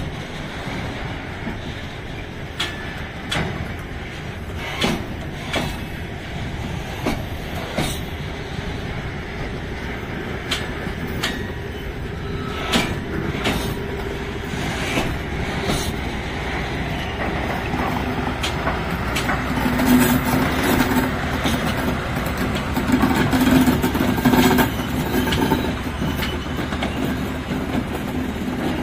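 Container flat wagons of a freight train rolling slowly past, wheels clicking and knocking irregularly over the rail joints. A diesel shunting locomotive's engine hum grows louder in the second half as the locomotive draws level.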